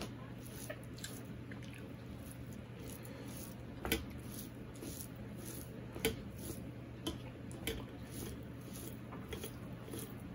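Fingers mixing rice with mashed cauliflower leaves on a stainless steel plate: soft squishing, with a few sharp clicks of fingers against the metal plate, the loudest about four seconds in and another about six seconds in.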